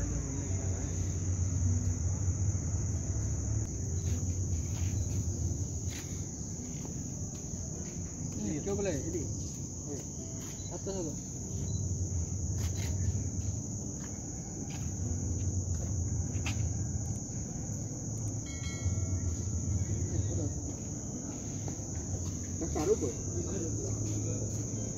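Crickets chirring steadily in the dark, a continuous high-pitched trill, over a low rumble that swells and fades.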